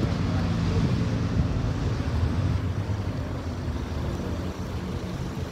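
Street traffic: a car engine running close by, strongest in the first half and easing off after about three seconds, over steady road noise.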